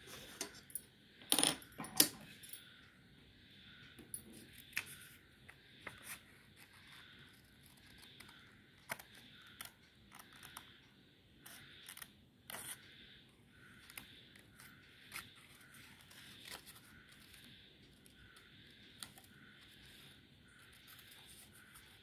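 Small scissors snipping through thin craft paper, cutting out a drawn triangle: a string of short, irregular snips. A couple of louder knocks come about one and two seconds in.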